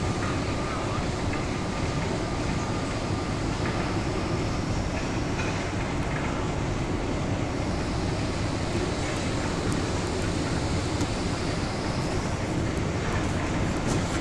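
Steady factory machinery noise: a dense, even din holding at one level, with no distinct rhythm or tone standing out.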